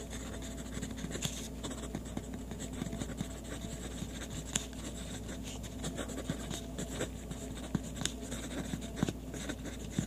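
Pilot RexGrip mechanical pencil writing on lined paper: the lead scratches quietly across the page in short strokes with small ticks, over a faint steady low hum.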